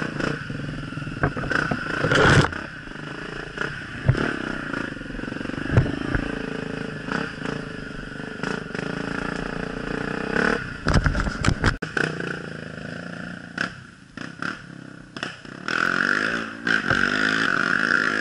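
Dirt bike engine running and revving up and down on a muddy, rutted trail, with repeated knocks and rattles as the bike jolts over bumps, including a loud cluster of them about two-thirds of the way through.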